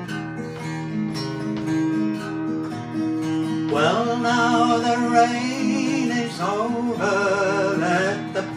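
Fingerpicked acoustic guitar playing a folk-song accompaniment, with a singing voice joining in about four seconds in and holding wavering notes.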